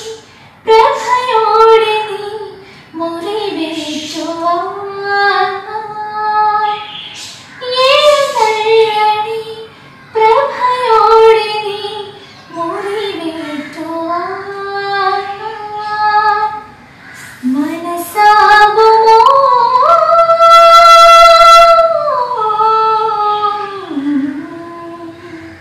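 A young woman singing solo and unaccompanied, in short phrases with brief breaths between them. About twenty seconds in she holds one long high note, then her voice falls away.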